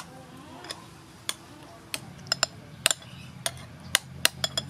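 Metal spoon clinking against a white ceramic bowl while stirring and pressing soaked tamarind pulp in water: about a dozen sharp clinks, closer together in the second half.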